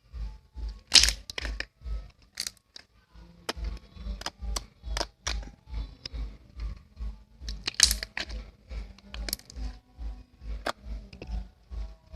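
Slime being squeezed and pressed by hand, giving sharp crackling pops now and then, loudest about a second in and again near the middle. Background music with a steady low beat plays underneath.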